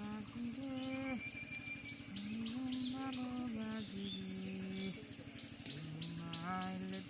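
Background music: a slow melody of held notes that step and glide in pitch, with runs of quick, high chirps repeating several times a second.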